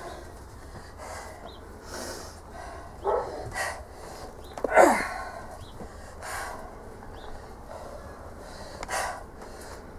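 Strained, breathy grunts and forceful exhalations from a person working hard to bend and snap a Grade 5 steel bolt by hand. There are several short bursts, each falling sharply in pitch, the loudest about five seconds in.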